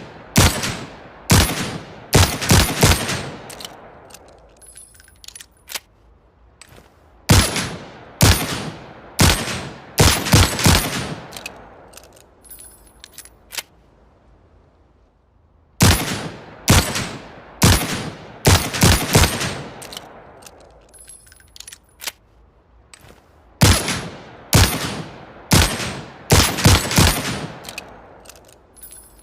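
Manurhin MR-73 revolver firing four strings of about six shots each in quick succession, every shot sharp with a short echoing tail. A few light metallic clicks fall in two of the pauses between strings.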